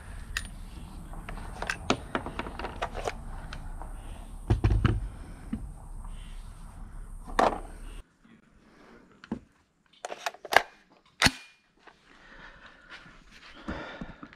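Irregular sharp metallic clicks and clacks of an AR-15 rifle being handled on a wooden bench, its magazine and action being worked. There is a heavier thump a little before the middle, and the sharpest, loudest clicks come about two thirds of the way through.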